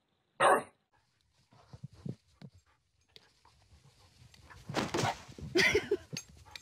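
A bulldog gives one short, loud bark about half a second in. This is followed by a stretch of mixed, fainter noises that grows louder for a couple of seconds near the end.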